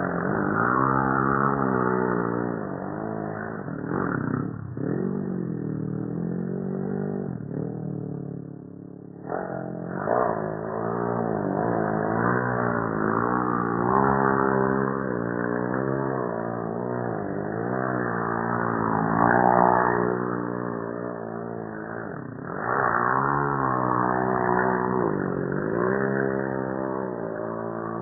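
Mini dirt bike engine revving up and down over and over while the bike is drifted in circles on gravel. The revs drop to a lower, quieter stretch about eight seconds in, then climb again.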